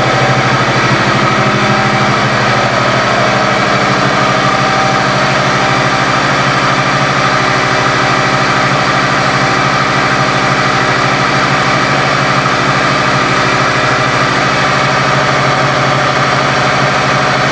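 Kawasaki Vulcan 1700 Nomad's 1,700 cc V-twin idling steadily through its aftermarket exhaust, with an even, unchanging rhythm.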